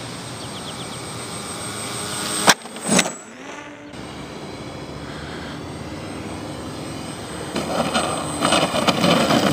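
Scratch-built twin-propeller RC model airplane flying, its motors and propellers a steady distant drone, with a sharp click about two and a half seconds in. Near the end a louder, rough noise comes in as the model touches down and rolls on the asphalt.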